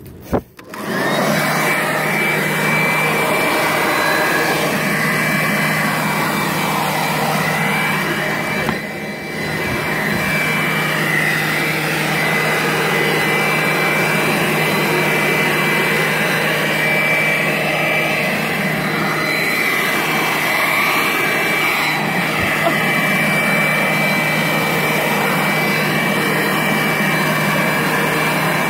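Corded electric leaf blower switched on about a second in and running steadily, a whine over the rush of air, with a brief dip in its sound about nine seconds in.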